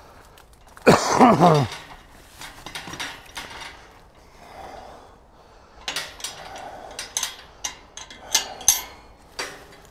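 Metal field gate being opened: a hinge squeal falling in pitch about a second in, then a run of sharp metallic clinks and rattles from the latch and frame.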